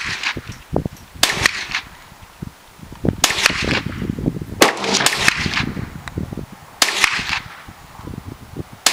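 Gunshots at an outdoor shooting range: about five groups of sharp cracks a second or two apart, each group a quick run of several cracks.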